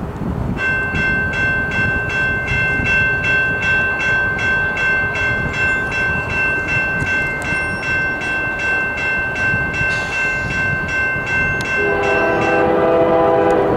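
Approaching freight locomotive's air horn sounding one long held chord for about twelve seconds, then a lower-pitched horn chord near the end, over the low rumble of the train.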